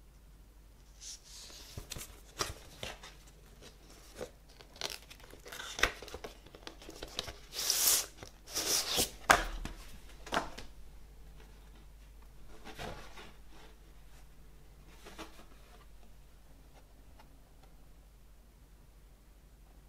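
Paper lyric sheets and record sleeves being handled: rustling, scraping and crinkling in a run of uneven bursts, loudest about eight to ten seconds in, then a few softer touches.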